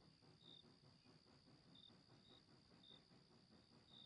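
Faint crickets: a steady high trill with short chirps at uneven intervals, over a soft low murmur.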